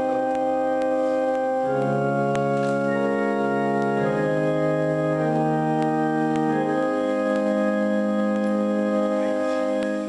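Organ playing slow, held chords that change every second or so.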